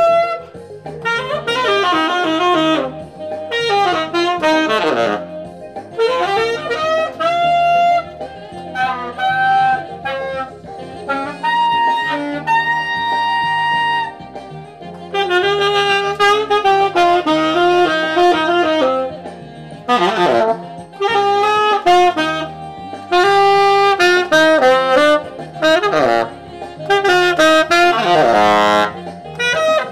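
Tenor saxophone with a metal mouthpiece playing a smooth R&B-jazz melody, phrase after phrase with pitch bends and quick runs, over a backing track.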